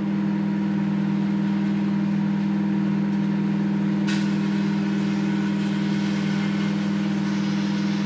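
Kenwood microwave oven running: a steady hum, with one faint click about four seconds in.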